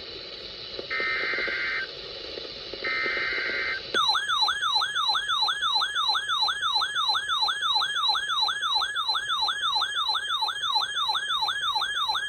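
Weather radio emergency alert over radio hiss: two one-second bursts of SAME header data tones, then about four seconds in a loud warbling alarm starts, a fast repeating pitch sweep about two and a half times a second, signalling an incoming severe weather warning.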